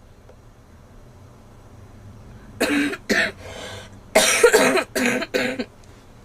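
A girl coughing: a quick pair of coughs about two and a half seconds in, a breath in, then a longer run of coughs.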